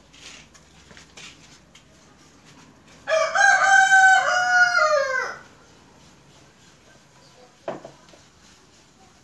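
A rooster crowing once, loud, for about two seconds from about three seconds in, the call stepping down in pitch and falling away at the end. A short knock follows near the end.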